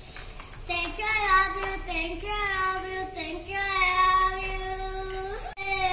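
A young child singing a wordless tune in long, wavering held notes. It cuts off abruptly near the end, and a voice sliding down in pitch follows.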